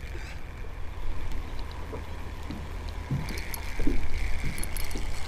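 Small waves lapping and splashing softly against the hull of a small rowing boat, with a steady low wind rumble on the microphone.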